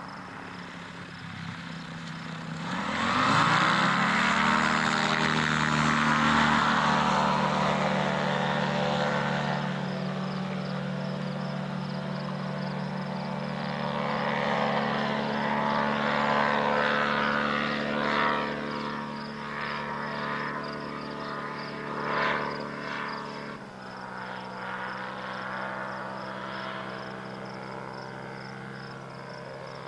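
Ultralight airplane's engine and propeller revving up for the takeoff run about three seconds in, then running steadily at full power as it climbs away. The engine note steps down in pitch near the end.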